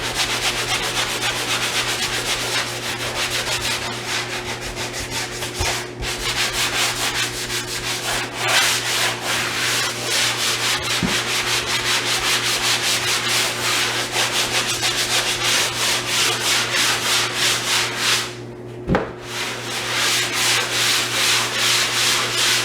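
Hand sanding block rubbed back and forth over dried drywall joint compound, an even scratching at about two strokes a second with two short pauses. This is the light final sanding of the second coat of mud before priming.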